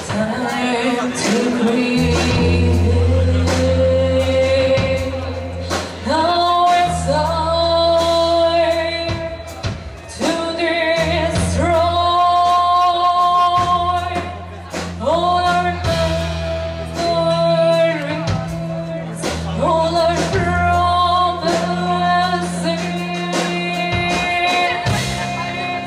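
Rock band playing live, with a singer holding long notes over low, steady bass notes and cymbal and drum hits.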